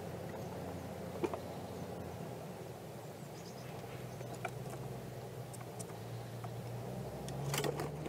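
A red squirrel's claws clicking and scraping on the wooden bird feeder as it climbs onto the feeding tray, faint at first and loudest in a short cluster of knocks near the end, over a steady low hum.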